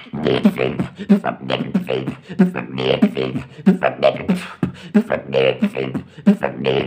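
Solo beatboxing: a man's mouth-made kicks and snares in an even, quick rhythm over a steady low tone, with short pitched vocal sounds woven between the strokes.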